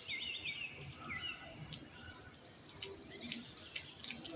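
Birds chirping in the background: a run of quick descending chirps at the start, then a rapid high trill for about the last second and a half, with a few faint clicks.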